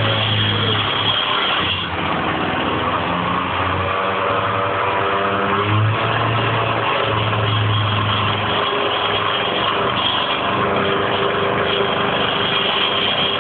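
Stihl two-stroke petrol saw running hard, its engine note rising and dipping as it works.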